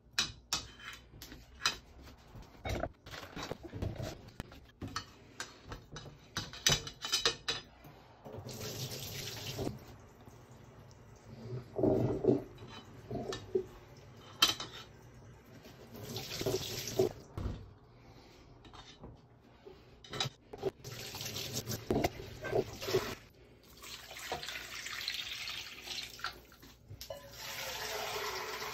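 Chopsticks and a knife clicking and scraping against a stainless steel bowl. From about 8 seconds in, a kitchen tap runs in several short bursts, with more knocks of utensils and pots between them.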